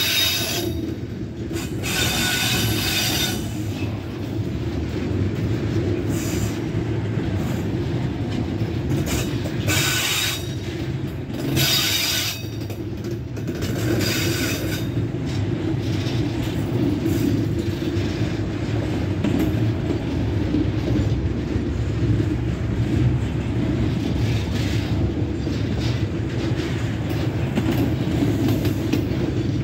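Loaded container wagons of a freight train rolling past at trackside: a steady low rumble of steel wheels on rail, with several high-pitched wheel squeals of about a second each in the first half.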